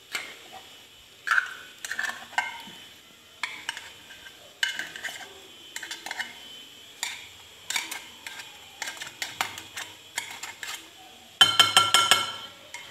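A utensil knocking and scraping against a glass bowl as cooked penne and canned tuna are stirred together, in scattered clinks with a short ringing note. About a second and a half before the end comes a quick run of rapid clinks, the loudest part.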